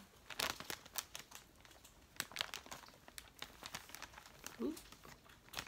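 Clear plastic bag crinkling and crackling as it is handled, in irregular quick bursts.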